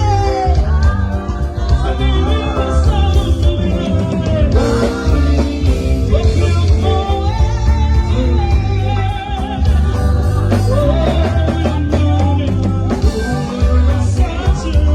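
A gospel song sung by a lead voice over a band, with heavy bass and a steady beat.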